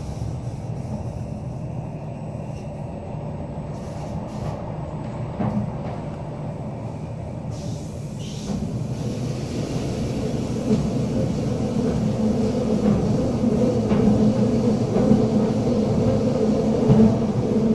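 Rhaetian Railway narrow-gauge train running, heard from inside the carriage: a steady rumble of wheels on the track that grows louder about halfway through.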